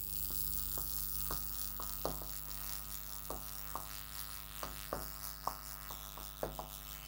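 Steady electrical mains hum, with irregular light clicks and taps of a pen writing on the board.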